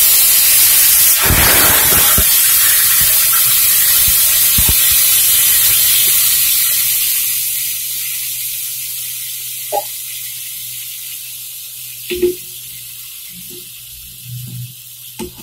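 Sugar syrup poured into semolina roasted in hot ghee, hissing and sizzling loudly as it hits the pan, the hiss slowly dying down over the following seconds. A few light knocks in the second half.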